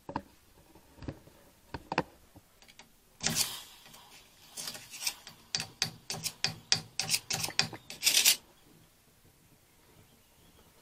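A few light clicks, then a run of rough scraping or rubbing strokes, about three or four a second, which stops a couple of seconds before the end.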